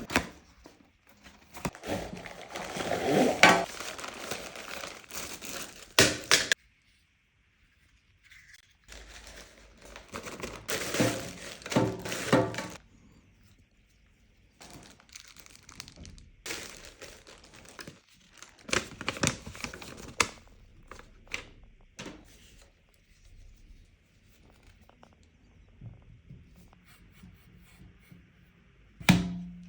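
Packaging being unwrapped and torn open: crinkling plastic and tearing in three long bursts with short pauses between, dotted with clicks and knocks, and a single heavy thump near the end.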